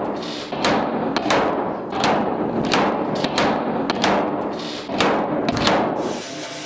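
Slide hammer dent puller knocking against its stop while hooked onto studs welded to a Triumph GT6's steel wheel-arch panel: repeated sharp metallic knocks, about one or two a second, each with a short ring, pulling the dented panel out. The knocking stops near the end.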